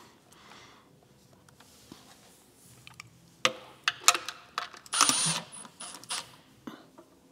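Engine oil pan being worked loose from the block by hand once its bolts are out: quiet at first, then a few sharp metallic clicks and knocks, with a brief scraping burst about five seconds in.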